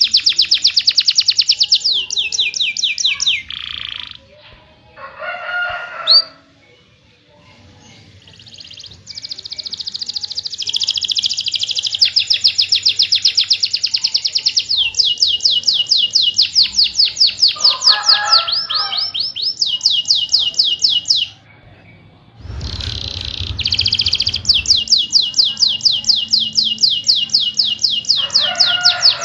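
Domestic canary singing a fast rolling song of rapidly repeated high chirps in long trills, broken twice by short pauses.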